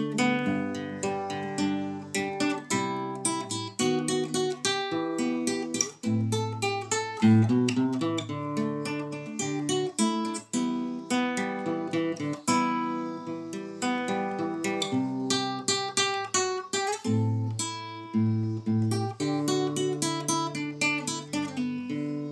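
Nylon-string classical guitar played solo: a picked melody over bass notes.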